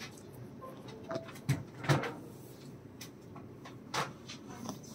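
A few short, sharp knocks and clicks in a quiet room, the loudest about one and a half, two and four seconds in.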